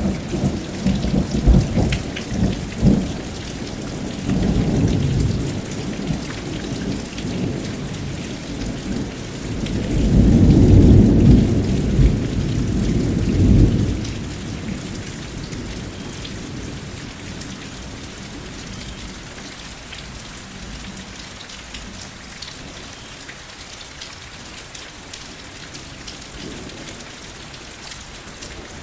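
Thunderstorm: steady rain hissing, with low rolling thunder in the first half, loudest in a long rumble around the middle, then fading out to rain alone.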